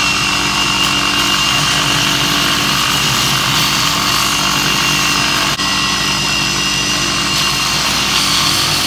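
Belt grinder running with a steel axe head held against the abrasive belt: a steady grinding hiss over the motor's hum, as the profile and weld seams are ground flat.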